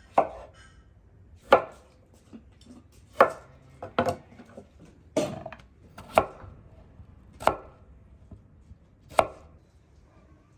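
Knife chopping on a cutting board: about eight single heavy strokes, roughly one a second and unevenly spaced.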